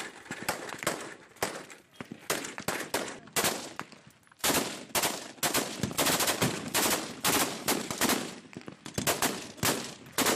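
Small-arms gunfire, including a belt-fed machine gun: scattered shots at first, then from about four and a half seconds in, dense rapid bursts of fire.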